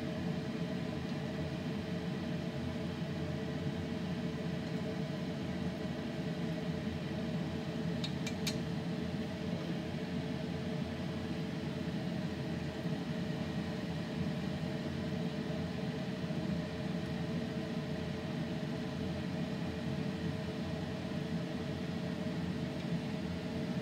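Cream cheese wontons frying in a pan of shallow oil: a steady sizzle over a constant low hum, with a couple of light clicks about eight seconds in.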